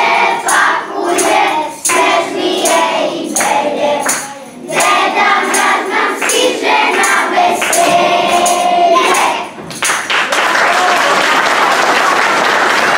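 A group of voices singing a song together over a steady beat of sharp percussive strikes. The song ends about ten seconds in and applause breaks out.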